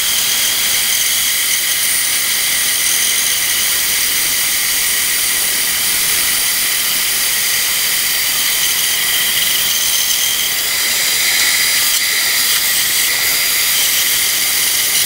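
Titan benchtop bandsaw running and cutting a small block of wood as it is fed through the blade: a steady, high-pitched whirr of motor and blade.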